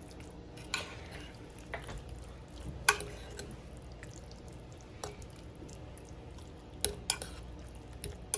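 A utensil stirring saucy palmini noodles in a glass baking dish, with wet stirring noise and a few sharp clinks of the utensil against the glass, the loudest about three seconds in.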